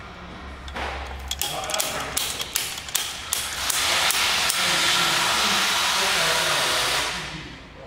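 Several short hissing blasts, then a steady hiss of about three seconds that fades out near the end, from a pressurised jet being worked around the engine.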